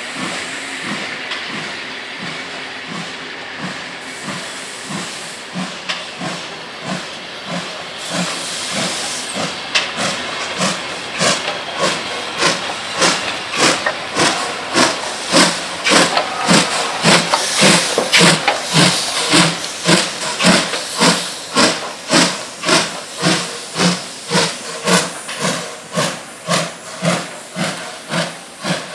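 Finnish Hr1 'Ukko-Pekka' steam locomotive No. 1009 working: a steady hiss of steam at first, then, about ten seconds in, its exhaust beats start up, an even chuff-chuff of about two beats a second that grows loud.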